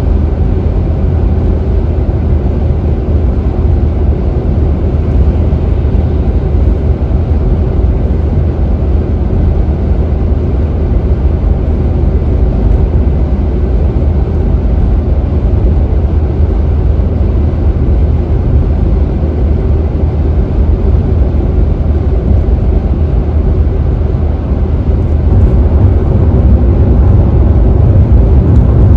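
Car cruising at freeway speed: a steady low rumble of tyre and road noise, a little louder near the end.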